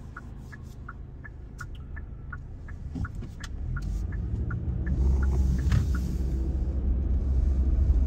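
Car driving on a road, its engine and tyre rumble growing louder about halfway through as it picks up speed. A regular run of short, high ticks about three a second sounds over the first half.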